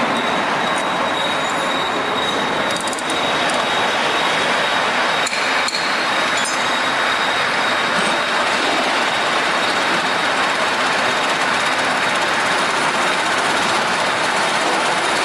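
Polishing machine working metal generator parts: a steady, loud abrasive hiss, with a thin high whine that stops about six seconds in and a few light clicks.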